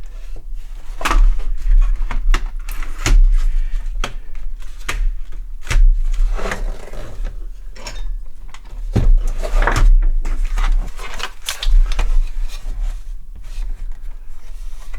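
Irregular clicks, knocks and scrapes of hands working at a Sinclair QL's plastic case and microdrive unit, trying to free a drive that is still held in by something. A steady low hum runs underneath.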